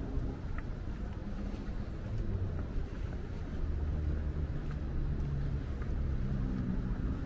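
Low, steady rumble of city traffic at a street corner, with an engine-like drone that is strongest a little past the middle.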